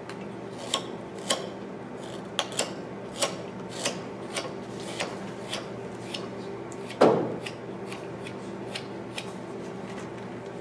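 Carving knife slicing thin chips from a white cedar decoy body: short crisp cuts, irregular, about one to two a second, with one louder knock about seven seconds in. A steady low hum runs underneath.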